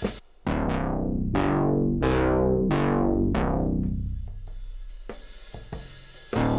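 Background music: the drum beat drops out, leaving struck chords that ring and fade one after another, and the beat comes back near the end.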